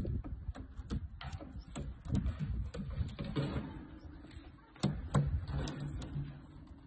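Scattered clicks and knocks against a wire pigeon cage, over low handling rumble. About five seconds in, a caged Mondain pigeon gives a low coo.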